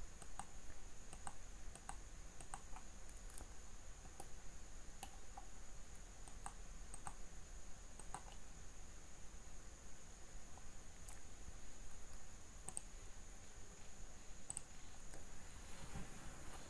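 Computer mouse and keyboard clicks, irregular and sparse, over a faint steady high whine and low hum.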